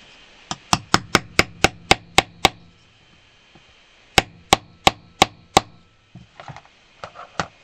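Craft hammer striking a rivet-setting rod to set a rivet through a leather strap: a run of about eight quick taps, a pause, then five more slightly spaced taps, with a few lighter knocks near the end.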